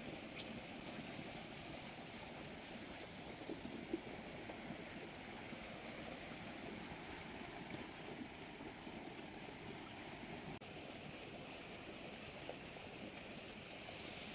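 Fast-flowing water rushing steadily down a narrow concrete-lined canal, with a single small click about four seconds in.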